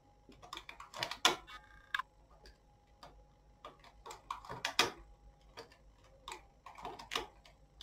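Metal needles of a domestic knitting machine being moved by hand, giving irregular light clicks and ticks, several a second, with a few sharper clicks among them.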